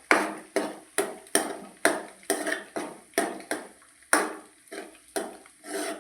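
A metal spatula stirring and striking against a cooking pan, in a steady run of about two sharp, ringing strokes a second.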